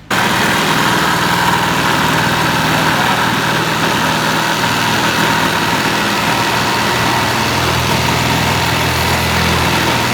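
A motor running steadily and loudly, starting abruptly, with a steady mid-pitched whine over a dense hum.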